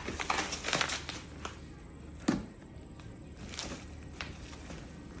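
Rustling, crinkling and light knocks of the ladder's packaging being handled and opened, with one sharper knock a little over two seconds in.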